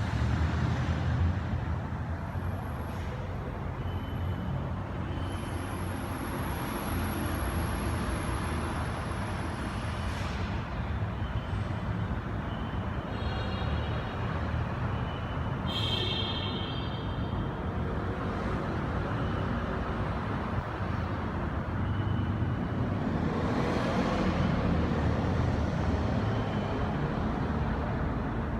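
Steady street traffic: vehicles passing with a continuous low rumble. A short high-pitched tone sounds about halfway through.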